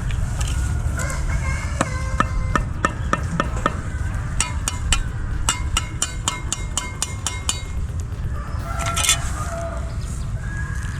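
A run of sharp knocks or taps, about three to four a second, over a steady low rumble, followed about nine seconds in by a brief hiss-like burst.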